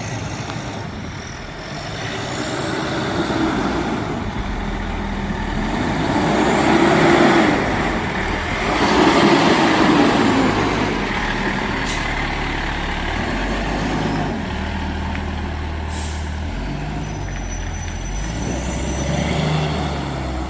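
Fire trucks' diesel engines running and moving, the engine note stepping and swelling as they pull in. Two short, sharp air-brake hisses come in the second half.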